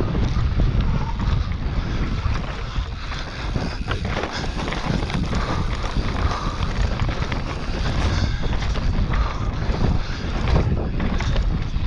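Wind buffeting the camera microphone over the rumble of a Giant Reign full-suspension mountain bike riding fast down a rough, rutted grass track, with short knocks and rattles from the bike as it hits bumps.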